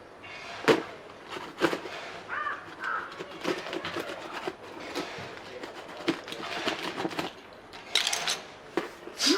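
Handling noises as a parcel is unpacked: scattered sharp knocks and clicks, the loudest about a second in.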